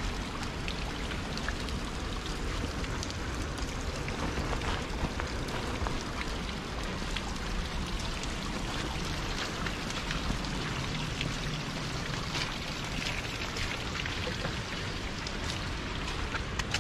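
Light rain pattering and water dripping onto wet rock and mud, a steady hiss scattered with small sharp drips, along with the hiker's footsteps on the wet trail.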